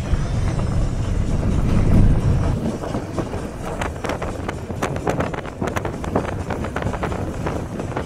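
Car rolling along a dirt and gravel track: low wind buffeting on the microphone through the open side window for the first couple of seconds, then the rumble drops away and gravel crackles and pops under the tyres.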